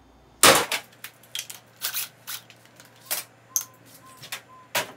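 A series of sharp knocks and clicks, about five spread over a few seconds, the loudest about half a second in.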